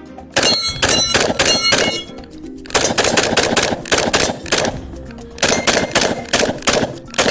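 Springfield Hellion 5.56 bullpup rifle fired fast, semi-automatic, in three quick strings of shots. Steel targets ring with a metallic ding on the hits.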